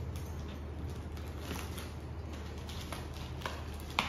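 Light scattered clicks and rustles of a cardboard box being handled, then a sharp snip near the end as scissors cut into the packing tape on its top.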